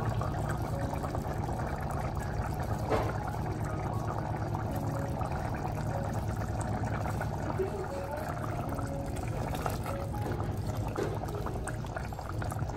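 Thin tamarind-based cowpea curry boiling in an unglazed clay pot: a steady bubbling over a low rumble.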